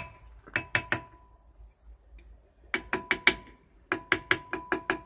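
A small hammer tapping a Lada Kalina 2's rear brake drum to free it from the hub where it is stuck, each blow leaving a short metallic ring. The blows come in quick runs: three about half a second in, four near three seconds, then a longer, faster series from about four seconds in.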